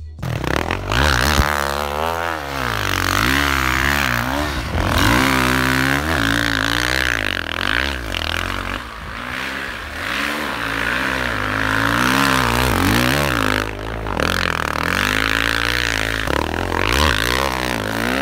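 Suzuki RM-Z450 dirt bike's four-stroke single-cylinder engine revving up and down over and over as it rides through deep snow, its pitch rising and falling every second or two.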